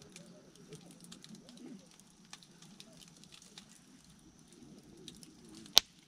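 Firewood burning: scattered crackles and snaps, with one loud sharp pop near the end.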